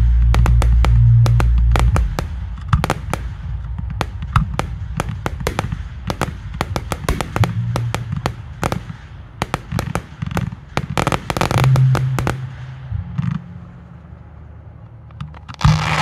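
Fireworks display: a rapid, dense string of sharp bangs and crackles from firework barrages, with heavy low booms in the first two seconds. The shots thin out toward the end, and a louder burst comes just before the end.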